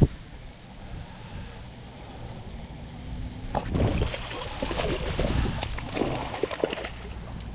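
Low wind rumble on the microphone, then from about three and a half seconds in a hooked bass splashes and thrashes at the water's surface as it is reeled in, in a run of irregular splashes and sloshes.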